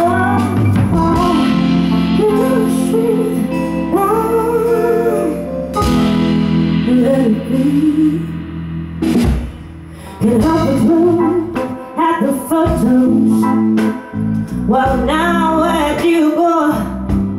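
Live soul band performing: a woman singing long, gliding melodic lines into a microphone over electric guitar and a steady low instrumental backing, with a brief dip about midway.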